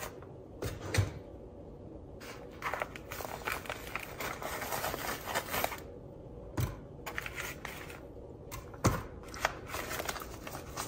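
Parchment paper crinkling and rustling as it is pulled out from under burger patties in a glass baking dish, with a few sharp knocks as the patties are lifted and set down.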